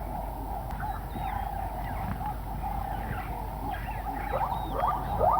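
Zebra calling: a run of short, rising yelps, about three a second, that starts near the end and grows louder, over a steady background drone.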